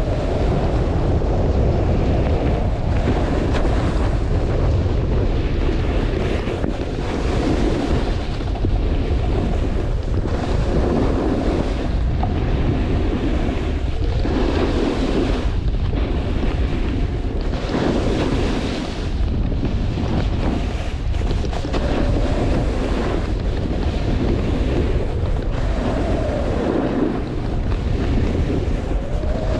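Strong wind buffeting the camera microphone during a downhill ski-slope run in a snowstorm, a loud steady rush with surges every few seconds, mixed with the scrape of the descent on snow.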